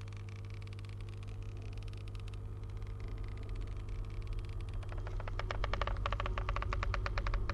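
Film soundtrack of a low steady drone with rapid crackling clicks laid over it; the clicks thicken and grow louder about five seconds in.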